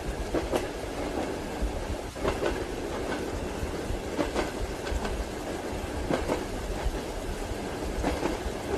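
Train wheels clacking over rail joints, a pair of clacks about every two seconds, over the steady low rumble of a moving railway carriage.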